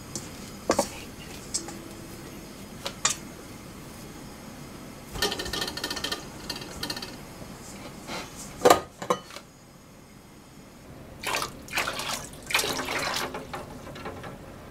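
Bread dough being kneaded and scraped in a stainless steel mixing bowl, with light knocks against the metal and two sharp metal knocks a little past halfway. Near the end, water splashing in a large steel pot.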